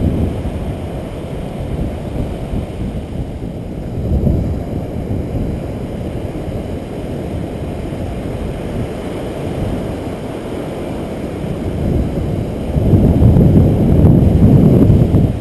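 Wind buffeting the action camera's microphone: a constant low rumble that swells in gusts, with the strongest gust lasting a couple of seconds near the end.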